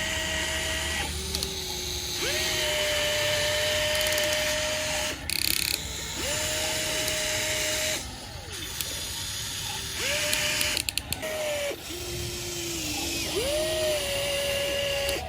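RC excavator's small electric motors and gearing whining in a series of short runs, each rising in pitch as it starts and dropping off as it stops, some runs lower in pitch than others. A short cluster of clicks sounds about eleven seconds in.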